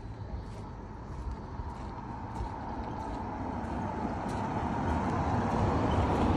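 A motor vehicle's engine running, steadily getting louder over the last few seconds.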